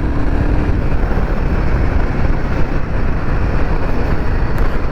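Royal Enfield Himalayan 450's single-cylinder engine pulling under throttle in fifth gear while riding, buried in loud, steady wind rush on the helmet camera's microphone.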